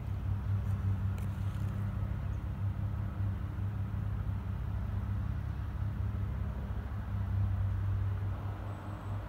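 Bell 407 helicopter flying by: a steady low drone from its four-blade rotor and turbine, a little louder about eight seconds in and easing off near the end.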